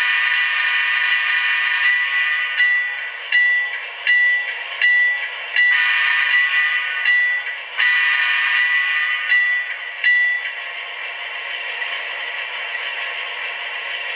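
ZIMO MX645 sound decoder in an HO scale GE AC4400CW model playing the locomotive's bell, struck about every three-quarters of a second and stopping about ten seconds in, over the steady diesel engine sound. The sound comes through a 28mm round speaker and is tinny, with no bass.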